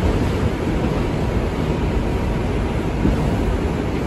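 Steady rumble of an R142 subway car running along the track, heard from inside the car.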